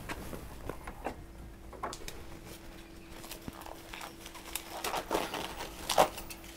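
Footsteps and handling knocks as a towel-wrapped baby monkey is carried over a wooden deck and laid on a stainless steel table, with a sharper knock near the end. A steady hum comes in about a second in.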